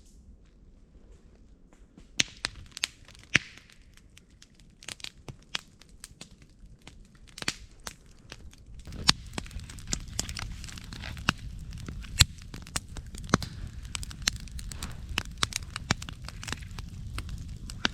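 Wood campfire crackling with irregular sharp pops, sparse at first; about halfway a low steady rush of burning joins in and the pops come thicker.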